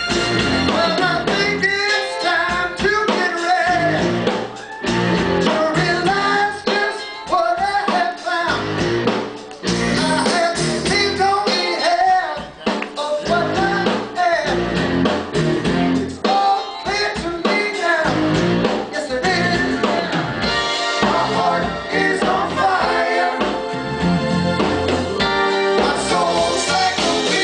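Live rock band playing: a male lead vocal sung over keytar synthesizer, electric guitar, keyboards and drum kit, heard loud and full from within the audience.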